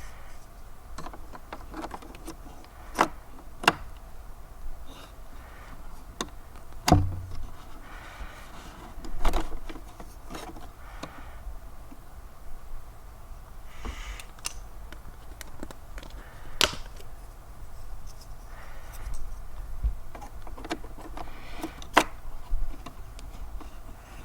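Scattered sharp clicks and knocks of RAM sticks being handled and pushed into the 27-inch iMac's memory slots, with a few softer rustles between.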